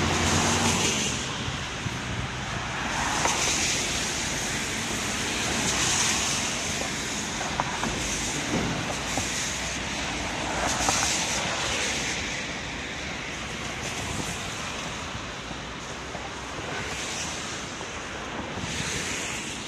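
Traffic on a wet, slushy road: tyres hissing as cars and buses pass one after another, each pass swelling and fading over a couple of seconds.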